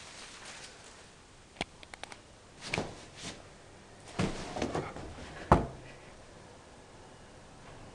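A scatter of short knocks, scuffs and thumps from a Rhodesian Ridgeback puppy moving about on and off a floor cushion bed, the loudest thump about five and a half seconds in.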